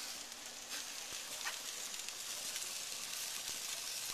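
Chicken fat and juices sizzling on a hot gas grill: a steady crackling hiss with a few sharper pops.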